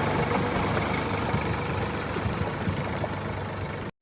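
Tractor engine running steadily with a low rumble, fading a little, then cutting off abruptly near the end.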